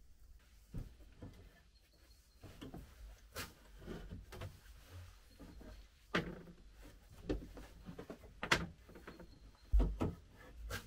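Rustling, rubbing and irregular knocks of a person picking up and handling a pair of laced boots on a plank floor, with several sharp knocks. The first couple of seconds are nearly quiet.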